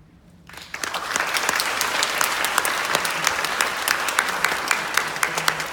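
Audience applause breaking out about half a second in, building within a second and then continuing steadily.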